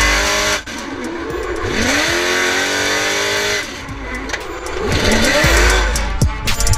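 Hip-hop music track with gliding, swooping tones and a heavy bass that comes in near the end.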